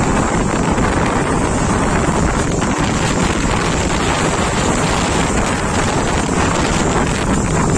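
Steady wind rush buffeting the microphone of a motorcycle moving at road speed.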